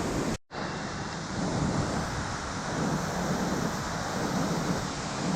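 Waterfall rushing: a steady noise of falling water. It cuts out for an instant about half a second in.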